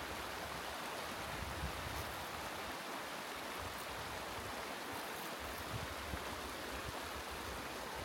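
Steady rush of running water, even and unchanging.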